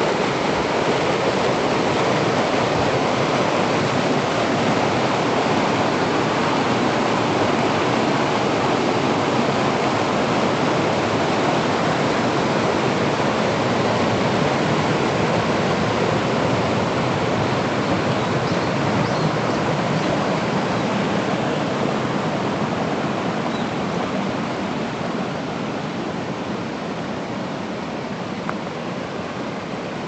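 Steady rush of a waterfall pouring down channels in broad rock slabs, fading gradually over the last third.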